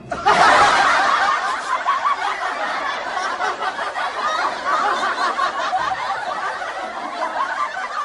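Laughter sound effect: several voices laughing and snickering together. It starts abruptly.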